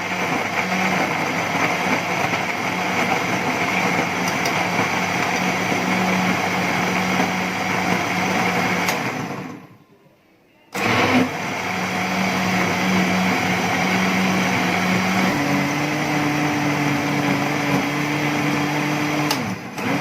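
Electric countertop blender running, blending soaked dates with lemon pieces and the dates' soaking water. It stops for about a second near the middle, then runs again.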